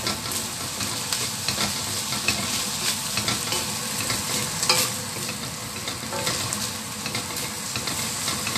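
Fried rice sizzling in a stainless steel wok while a wooden spatula stirs and scrapes it around the pan, giving a steady hiss broken by frequent short scraping clicks.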